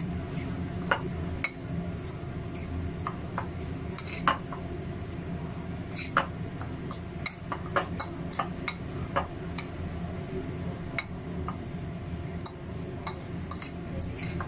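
A metal fork stirring a thick mix of corn kernels and cornstarch in a ceramic bowl, clinking and scraping against the bowl in irregular small taps. This is the starch being worked into the corn before the egg goes in.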